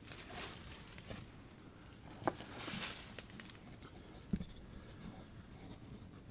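Faint handling noise and rustling as a handheld camera is carried and panned through dry leaves and rhododendron branches, with two soft knocks about two and four seconds in.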